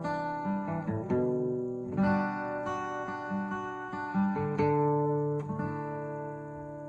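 Acoustic guitar picking chords in the song's outro, each note ringing on. A last chord about five and a half seconds in rings out and fades away.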